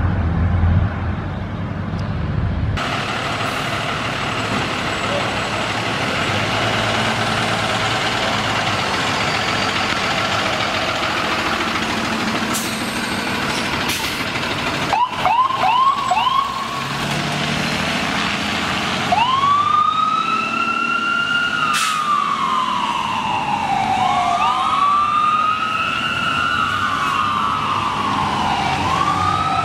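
Ambulance siren: about halfway through, a few quick rising chirps, then a wail that rises quickly and falls slowly, repeating several times. Truck engine and road noise sit underneath.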